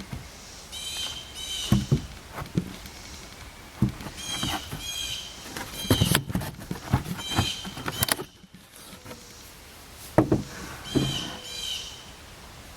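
Irregular wooden knocks and thumps of pine boards being handled and set in place, with short bird chirps repeating over them.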